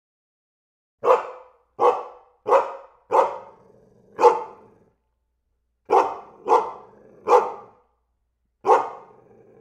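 A dog barking: five barks about a second apart, a short pause, then four more.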